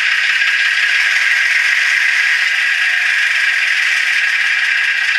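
Simulated small diesel engine from an M-tronic sound card playing through the model locomotive's small 8-ohm speaker, idling with a steady, even rattle. It is thin and high, with little bass.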